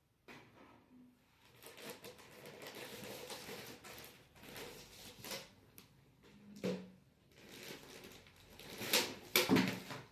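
Handling noises from unpacking an air purifier and its filter: uneven rustling and scraping with light clicks, and a few louder sharp knocks about nine seconds in.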